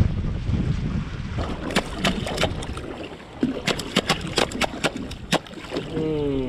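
Wind buffeting the microphone aboard a small fishing boat, then, from about a second and a half in, a run of a dozen or so sharp, irregular knocks and clicks. A man's voice starts near the end.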